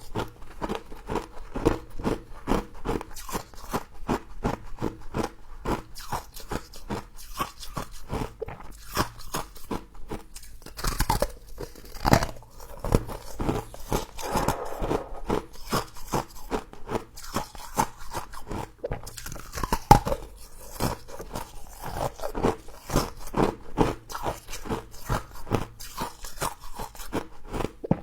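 Frost being bitten and chewed: a steady run of crisp crunches, several a second, with a few louder bites.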